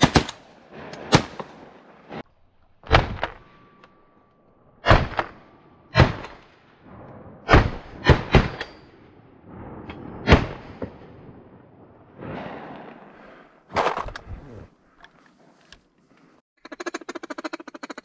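12-gauge semi-automatic shotguns firing, about a dozen sharp shots, some in quick pairs and triplets, spread over the first fifteen seconds. Near the end comes a fast run of quacking.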